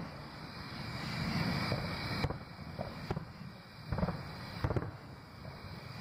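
Distant aerial fireworks shells bursting over a low, rolling rumble, with sharp booms at the start, about four seconds in and again shortly after.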